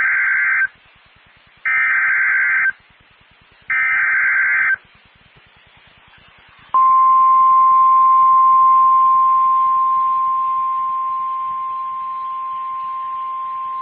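Three EAS (SAME) digital header bursts, each about a second long and about a second apart, then the NOAA Weather Radio 1050 Hz warning alarm tone, a single steady tone starting about seven seconds in and holding on. Together they announce a new warning being broadcast.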